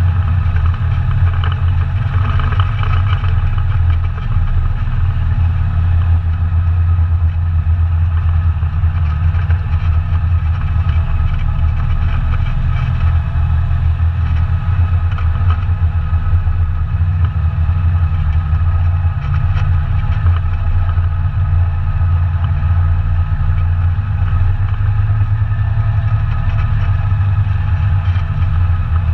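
ATV engine running at a steady, unchanging speed.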